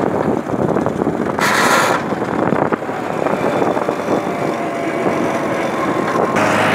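Tractor engine running while the tractor is under way, heard from on board. About a second and a half in there is a short burst of hiss. Near the end a steady low hum comes in.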